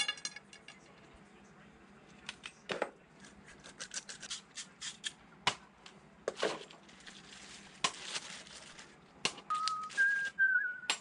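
Copper pipe, press fittings and hand tools being handled on a workbench: small metal clinks and taps, a ringing clink at the start, and plastic rustling, with a few short squeaks near the end.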